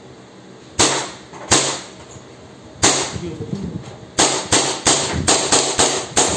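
Gas blowback airsoft pistol (B&W/Poseidon M92 Beretta replica) firing, each shot a sharp crack as the slide cycles. Three spaced single shots are followed by a quick string of about nine shots, roughly four a second.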